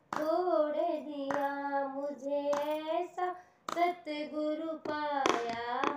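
A woman singing a Hindi devotional bhajan, holding long, wavering notes, with hand claps keeping time about once a second.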